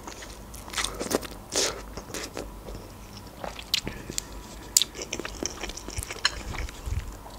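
Close-miked eating: a mouthful of spicy instant noodles being chewed, with many short, irregular wet mouth clicks and smacks.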